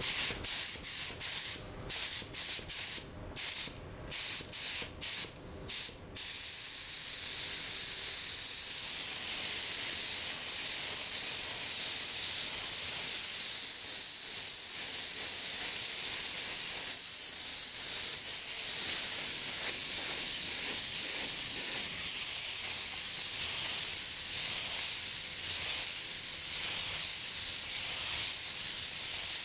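Iwata Supernova spray gun spraying basecoat with compressed air. The gun gives a series of short hissing bursts as the trigger is pulled and released, and from about six seconds in it hisses without a break during a long spraying pass.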